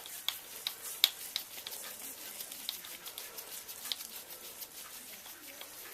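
Scattered light clicks and ticks of small tools and parts being handled while screws are removed from an RC buggy's rear suspension, with sharper clicks about a second in and near four seconds.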